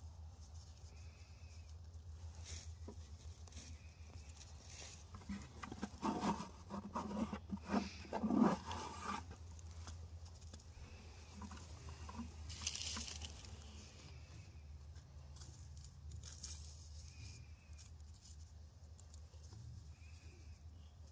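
Bare hands pressing, patting and smearing wet mortar between stacked stones: soft, wet patting and scraping sounds. About six seconds in there is a louder pitched sound lasting a few seconds.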